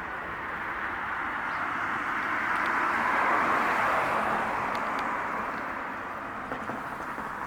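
Road traffic: a vehicle passing, its noise swelling to a peak about halfway through and then fading away.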